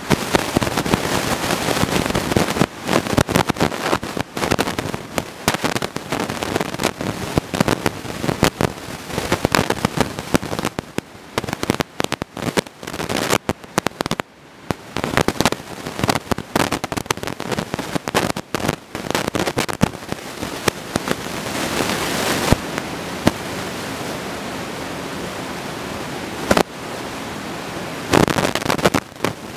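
Dense, irregular crackling and popping noise. It settles into a steadier hiss for a few seconds in the second half, then breaks back into crackles near the end.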